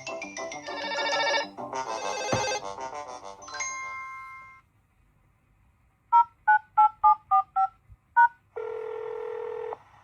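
A smartphone ringtone melody plays and fades out about four seconds in. After a short pause come seven short touch-tone keypad beeps, then a steady tone lasting about a second.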